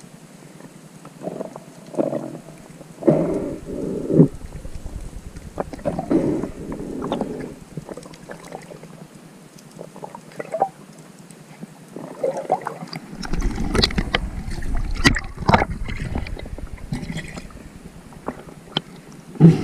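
Muffled water sounds heard through an underwater camera: irregular swishes and gurgles as a freediver moves. In the last few seconds a low rumble comes in with a run of sharp clicks and knocks.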